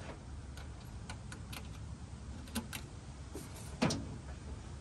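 A few scattered light clicks and taps as a test light and its lead are handled over a car's engine bay. One sharper click comes near the end, over a low steady rumble.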